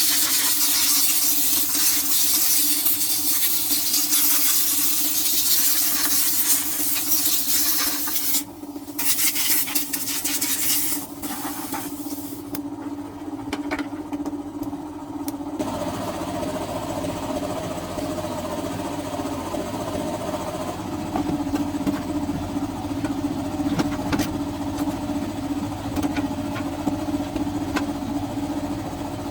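An engine running steadily, with a dense high hiss over it in the first half; about halfway through the hiss drops away and the engine note changes, with light ticking.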